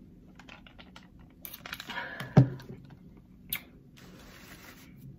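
Close-up table-top handling noises: a run of small clicks and some rustling, one loud thump a little before midway, a sharp click about a second after it, then a faint steady rustle.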